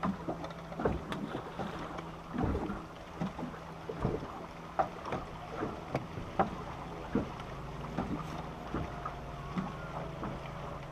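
Electric trolling motor on a bass boat running with a steady low hum, overlaid by scattered irregular knocks and clicks from handling and movement on the deck.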